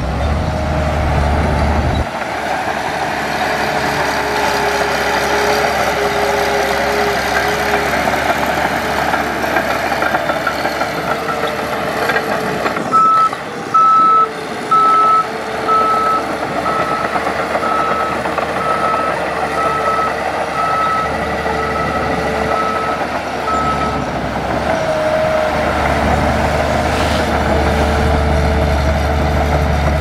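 Heavy earthmoving machine running, with a reversing alarm beeping about once a second for roughly ten seconds in the middle while the engine rumble carries on underneath.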